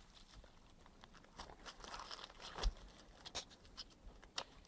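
Faint clicks and crinkling of hands working the display cable and its connector loose from a laptop's LCD panel, with one slightly louder knock about two and a half seconds in.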